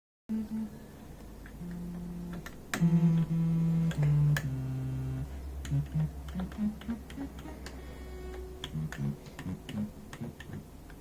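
Single low notes from a software instrument played on an Alesis QMini MIDI keyboard, one at a time: a few held notes, then a run of short notes from about halfway in. The small plastic keys click under the fingers throughout.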